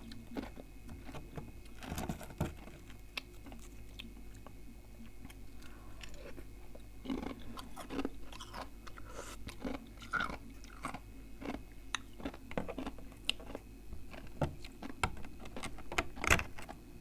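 Close-miked chewing and biting of freezer ice and frost, with irregular sharp crunches; the loudest comes about 16 seconds in.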